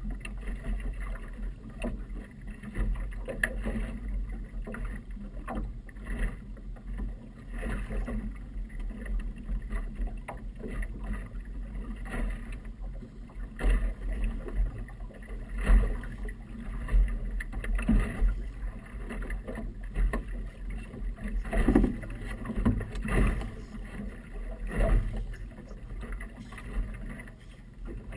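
Small motorboat rocking on choppy water: irregular slaps and knocks of waves against the hull over a low, uneven wind rumble on the microphone.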